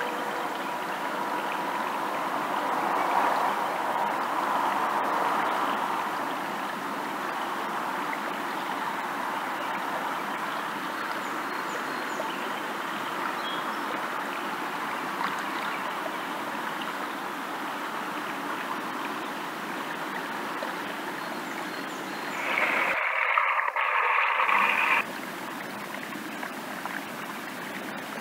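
Foaming water rushing steadily down a narrow ditch: backed-up water draining off through a culvert freshly cleared of a beaver plug. Near the end the rush turns briefly louder and thinner for about two seconds.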